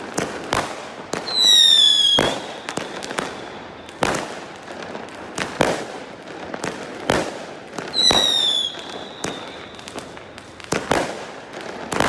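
Fireworks going off: sharp bangs at irregular intervals, several a few seconds apart. Twice, about a second in and again about eight seconds in, a whistling firework gives a shrill falling whistle lasting under a second, which fades into a faint held tone.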